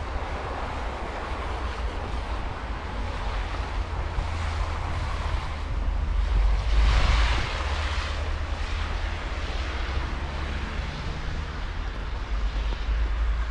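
Wind buffeting the microphone with a steady low rumble, under an outdoor rushing noise that swells to its loudest about seven seconds in and then eases.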